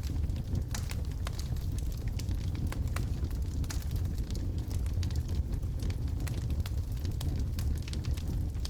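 Wood logs burning in a fireplace: a steady low rumble of the flames with frequent irregular crackles and pops from the burning wood.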